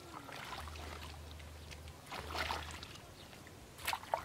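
Shallow muddy water sloshing and splashing as a wooden pole is worked through it among water hyacinth, with short splashes about two seconds in and again near the end. A low hum comes and goes underneath.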